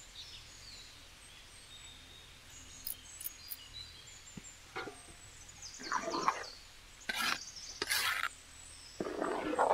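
Ladle stirring thick sambar rice in a large aluminium pot: about four short scraping strokes roughly a second apart in the second half, with faint bird chirps in the background.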